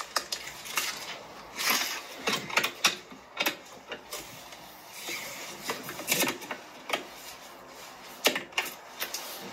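Irregular clatter, knocks and rubbing as a heavy RV shore-power cable with a plastic plug is handled and stuffed into a trailer's storage compartment. A few sharper knocks come near the end.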